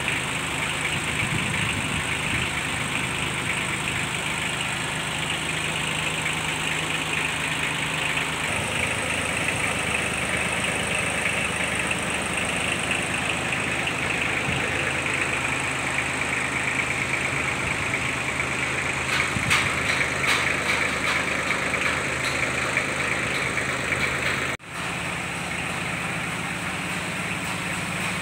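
Kubota B1600 tractor's diesel engine idling steadily, with a brief break near the end.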